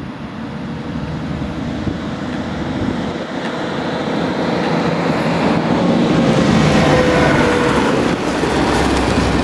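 Airbus A330-300 airliner's twin jet engines on short final approach, a steady roar that grows louder as the aircraft comes in low toward touchdown, peaking near the end, with a faint steady whine in it.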